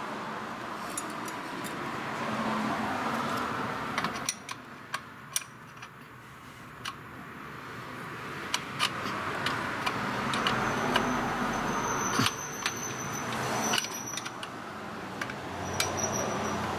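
Scattered clicks and clinks of a hand tool and small metal parts being worked on a carburetor's fittings, over a low, steady hiss.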